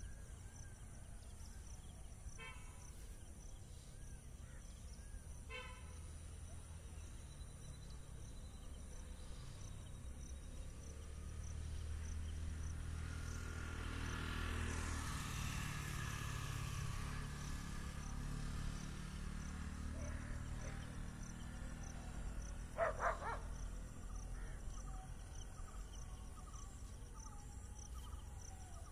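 Evening countryside ambience: insects chirping steadily in a high, pulsing rhythm, with a few short bird calls. A low rumble swells and fades through the middle, and a brief louder call stands out about three quarters of the way through.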